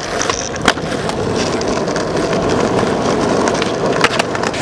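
Skateboard wheels rolling on rough asphalt, a steady grinding rumble. There is one sharp clack about a second in, and a few more clacks near the end as the tail pops and the board flips.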